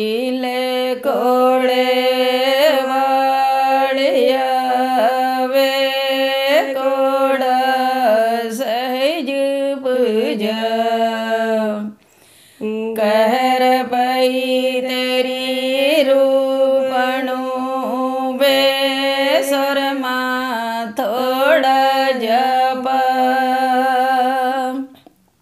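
A woman singing a Punjabi folk song (lok geet) unaccompanied, in long held, ornamented notes, with a short pause for breath about twelve seconds in.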